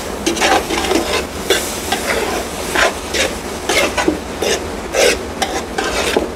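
Metal spoon stirring and scraping through a large metal stockpot of sautéed onions with dried herbs, in irregular strokes about two a second, over a sizzle from the pot.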